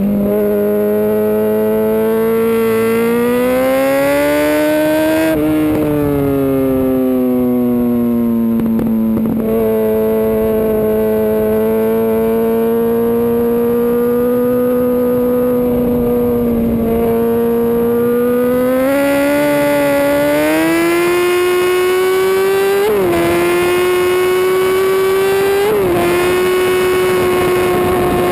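2005 Yamaha R1 inline-four sportbike engine at speed on track, heard from on board with wind rushing over the microphone. The revs climb, ease off about five seconds in and hold nearly steady for a long stretch, then climb again with two short pitch spikes near the end.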